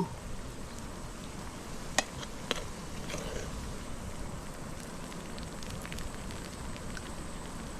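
Steady crackling hiss with a sharp pop about two seconds in and a second, weaker pop half a second later.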